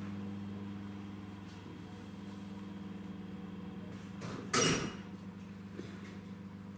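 A steady low electrical hum, with one short, loud noise about four and a half seconds in.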